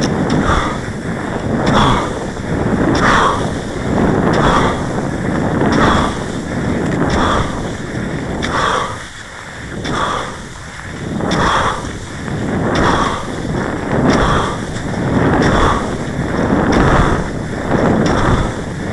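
Cross-country skis swishing over a groomed snow track in a steady rhythm, roughly one swish every second and a half, with wind noise on the microphone.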